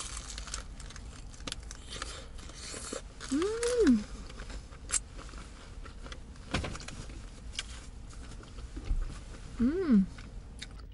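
A person biting into and chewing a burger, with the paper wrapper crinkling and crackling. Twice, about three seconds in and near the end, the eater gives a short hum that rises and falls in pitch.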